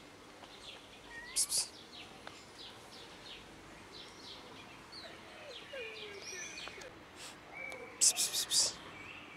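Wild birds chirping and calling, with many short whistled notes and glides. Twice, about a second and a half in and again near the end, a few short, sharp hissing bursts stand out as the loudest sounds.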